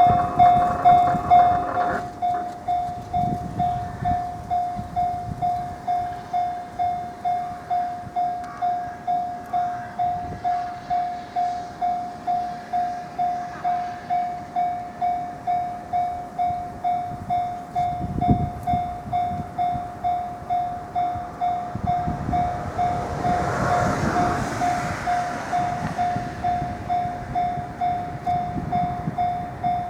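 Japanese railway level-crossing warning bell ringing its steady electronic clang at about one and a half strokes a second, the signal that a train is approaching. A swell of rushing noise rises and falls a little past twenty seconds in.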